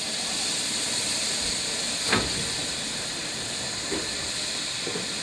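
Steam locomotive hissing steadily as it releases steam, with a single sharp knock about two seconds in.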